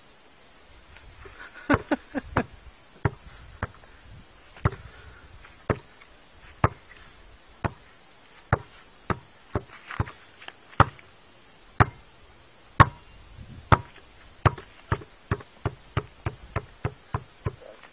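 Repeated sharp slaps of a cat's paw batting at a basketball held out to it. They come about once a second, then quicken to about three a second near the end.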